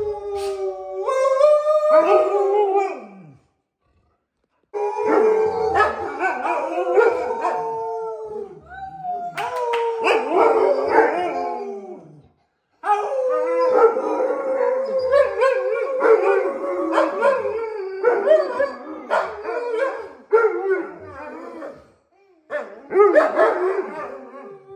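Alaskan Malamutes howling together in long, wavering howls, at more than one pitch at once, in excitement at their owners' return. The howling breaks off abruptly twice, then starts up again.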